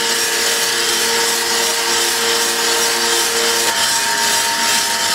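Coffee roaster drum turning with a charge of beans tumbling and sliding inside it: a steady rasping hiss over a faint motor hum. About two-thirds of the way through, the hum changes pitch.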